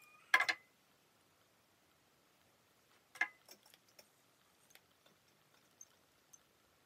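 Sharp plastic clicks from an Arnika curling iron being handled as one curl is released and a new strand is clamped. The louder cluster comes about a third of a second in, another a little past the middle, then a few faint ticks.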